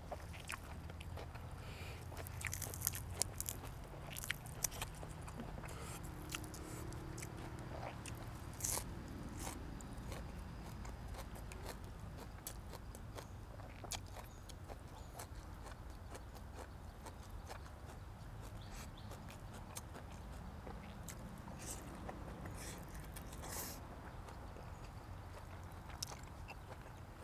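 A person chewing and biting into food (boiled pork and raw vegetables), with crunches and sharp wet clicks that come in clusters, over a low steady hum.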